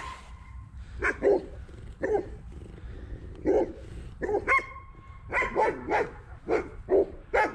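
A dog barking repeatedly: about a dozen short barks, spaced out at first and coming in quicker runs over the last few seconds.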